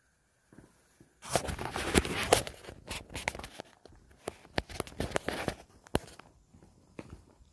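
Rustling handling noise as a phone camera is picked up, followed by footsteps on a concrete and asphalt driveway, a couple of steps a second, thinning out near the end.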